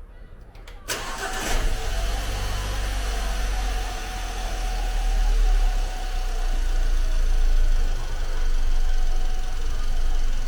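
Great Wall WEY car engine started just under a second in, then running steadily at idle, with its pitch lifting a little about halfway through. With two new pulleys fitted, the engine sound is normal, without the earlier rod-knock-like clatter.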